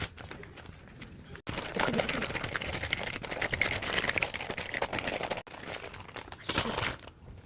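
Pen scratching quickly across paper as a name is written in a notebook, a dense run of short scratches that begins and ends abruptly at edits, about a second and a half in and five and a half seconds in.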